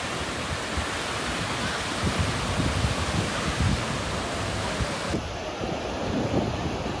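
Steady rush of sea surf and wind on the microphone, with no distinct events. The sound changes abruptly about five seconds in, losing its highest part.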